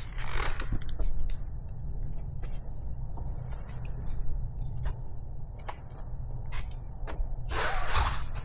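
Microfiber towel wiping and buffing wax off a car's glossy painted body panels: rubbing swishes, louder right at the start and again near the end, with small scattered clicks over a steady low rumble.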